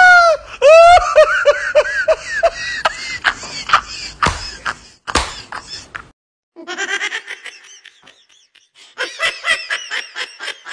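High-pitched laughter in several runs of quick 'ha-ha' pulses, with a brief break about six seconds in.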